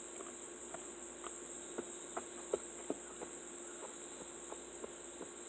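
A steady high-pitched trill or whine and a steady low hum, with scattered light clicks and taps at an irregular pace; two sharper clicks come about two and a half and three seconds in.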